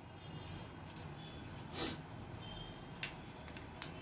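Faint clicks and light taps of a small glass spice bowl and spoon being handled over a ceramic mixing bowl of batter. A short, soft rush of noise a little under two seconds in is the loudest sound.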